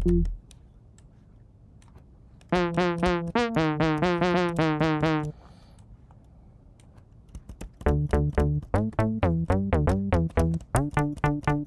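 Super Nintendo–style synth bass from a sample library being auditioned, playing short repeated note patterns. The first phrase runs from about two and a half seconds to just past five. After a near-quiet gap, a second phrase starts at about eight seconds with low thumps under the notes.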